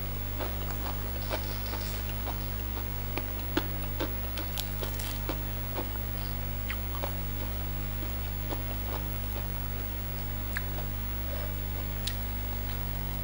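Eating by hand: chewing and mouth clicks, with scattered ticks of fingers tearing fried fish and chicken, busiest in the first half. A steady low hum runs underneath.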